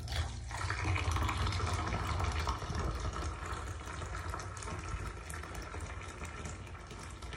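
Boiling water poured in a steady stream from an electric kettle into a drain opening, splashing and trickling down the pipe. It is the hot-water flush that follows a baking soda and vinegar treatment of a hair-clogged drain.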